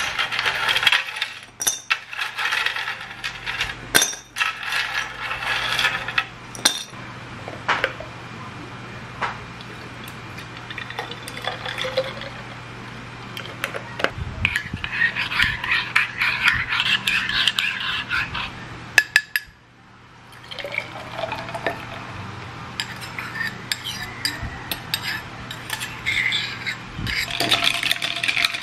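Drink being made in a glass bottle: sharp clinks against the glass over the first several seconds, then milk poured from a carton into the bottle with a steady splashing hiss, and near the end a metal straw clinking against the glass as it stirs.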